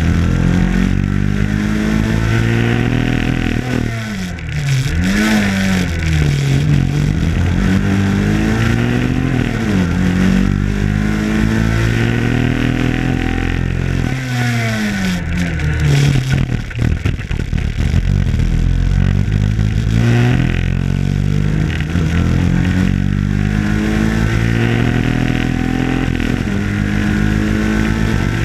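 Rally car engine heard from inside the cockpit, revving hard through the gears. Its pitch climbs and falls with each shift, and drops away steeply around four and fifteen seconds in before climbing again.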